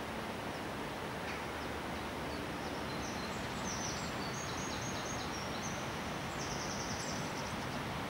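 Steady rushing of a fast river, with a small songbird singing quick, high chirped and trilled phrases over it from about three seconds in until near the end.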